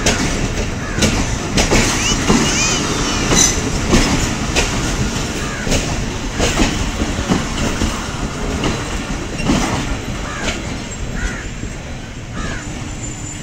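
Railway platform beside a standing passenger train: a steady low rumble with scattered knocks and clatter, a few short squeaks and faint voices.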